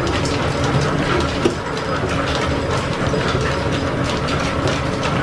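Line-shaft-driven engine lathe running: a steady clatter of gearing with quick, irregular clicking throughout.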